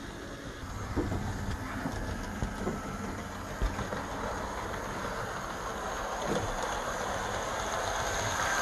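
Unpainted HO scale Alco RS-3 model diesel locomotive running on the layout track: the hum of its flywheel-equipped motor and the wheels clicking over the rails, getting gradually louder toward the end.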